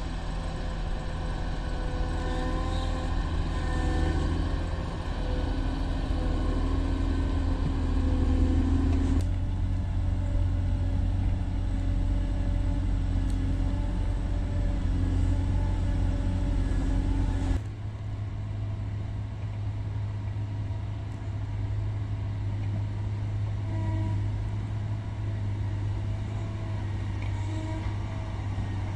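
Caterpillar 140M motor grader's diesel engine running steadily as the machine works its blade along a rocky dirt road. The engine note and loudness change abruptly twice, about nine and about eighteen seconds in.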